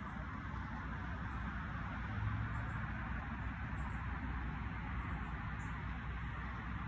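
Outdoor ambience: a steady hiss with a low rumble underneath and a few faint, short high chirps scattered through.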